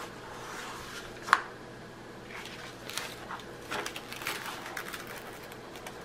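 Paper of a rolled diamond painting canvas and its protective sheet rustling and crinkling in short bursts as it is handled and smoothed flat, with one sharp knock about a second in.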